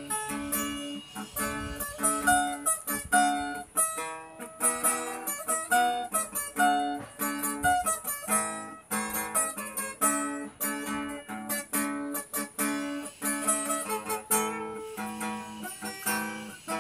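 Background music: plucked acoustic guitar playing a run of quickly picked notes.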